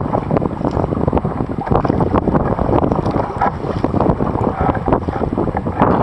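Strong wind buffeting the microphone of a deck-mounted camera on a sea kayak being paddled through choppy sea, a steady loud rumble with crackling gusts, mixed with water splashing from the paddle strokes.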